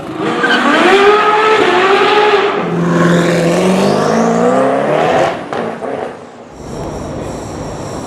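Loud supercar engine revving, its pitch swinging up and down. A lower engine note then climbs slowly and cuts off about five seconds in, followed by steadier, quieter street noise.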